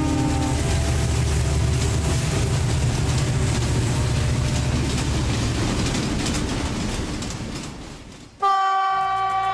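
A train horn cuts off about half a second in, then a train rumbles past with wheels clattering on the rails, fading away about eight seconds in. A short musical jingle starts just before the end.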